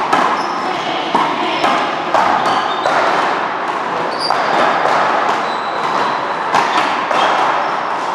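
Rubber ball in a one-wall paddleball rally: a string of sharp hits, roughly one every half second to a second, as paddles and hands strike the ball and it smacks off the wall and floor, echoing in a large hall. A few short high squeaks come in between the hits.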